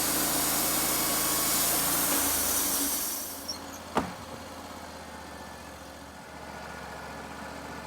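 Wood-Mizer LT35 portable bandsaw mill sawing cedar, the hiss of the blade in the cut dying away about three seconds in. A sharp knock comes about a second later, then the mill's engine runs on at idle.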